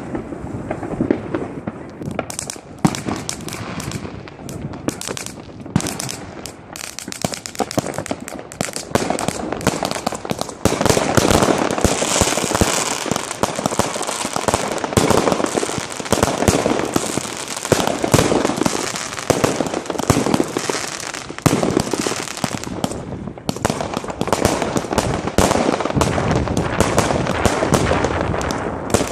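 Fireworks going off in rapid, continuous succession: dense bangs and pops with crackle. The firing grows louder and denser about ten seconds in, with a brief lull late on before it picks up again.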